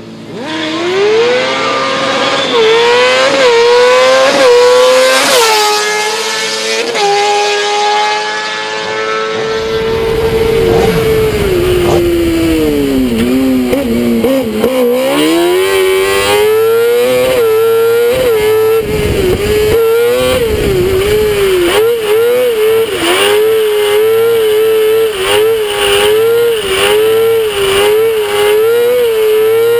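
Single-seat rally buggy's engine accelerating hard from a standstill, its pitch climbing and dropping back with several quick upshifts. Then, heard on board, it runs at high revs over wind rumble on the microphone, with the revs dipping and coming back up about halfway through.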